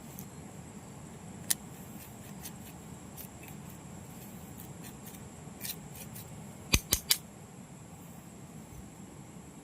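Sharp clicks or knocks: one about a second and a half in, then three in quick succession about seven seconds in, with fainter ticks scattered between, over a steady low hiss and a faint steady high whine.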